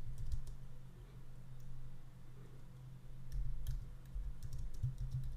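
Typing on a computer keyboard: scattered, irregular keystrokes over a low hum.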